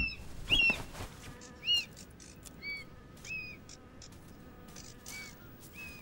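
Buzzards flapping their wings as they scuffle over carrion: two loud flaps in the first two seconds. Short, high bird chirps repeat about once a second.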